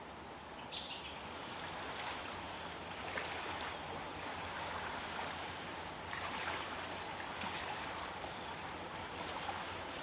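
Steady rushing outdoor noise, like running water or wind in foliage, with a couple of brief high chirps about a second in.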